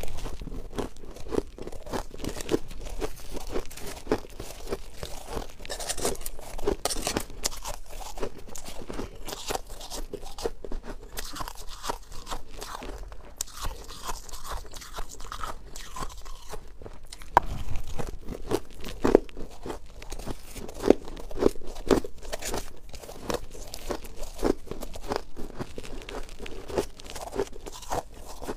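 Close-miked mouth crunching and chewing of fluffy, frosty shaved ice: a dense, irregular run of crisp crunches, with louder bites a little past the middle.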